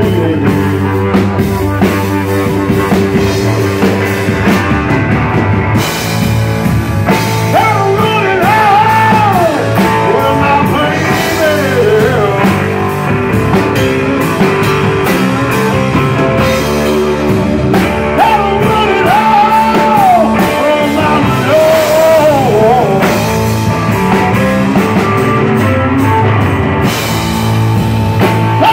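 Live rock band playing loud: electric guitar, bass guitar and drum kit, with a high melody line bending up and down from about seven seconds in.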